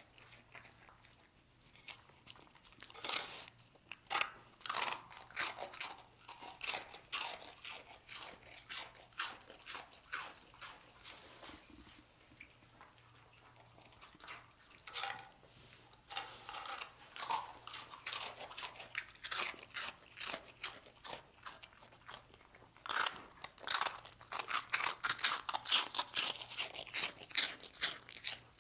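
Dog crunching and chewing dry toasted bread rusks in a run of sharp crunches, with a lull around the middle and a thick burst again near the end.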